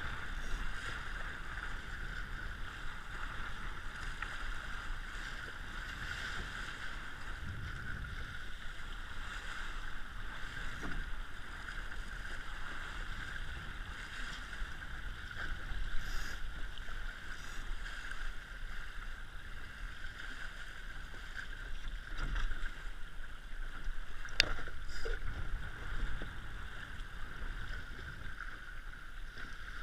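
An RS100 sailing dinghy under way, water rushing along its hull and wind on the microphone, as a steady rushing noise. There are a few light knocks and one sharp click about three-quarters of the way through.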